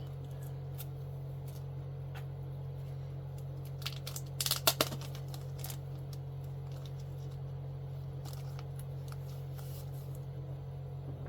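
Packaging and comic books being handled as a box is unpacked: scattered light rustles and clicks, with a brief burst of crinkling and rattling about four and a half seconds in, over a steady low hum.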